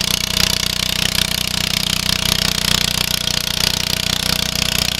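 A 10 hp International Cub Cadet garden tractor's single-cylinder engine running steadily with a rapid, even beat.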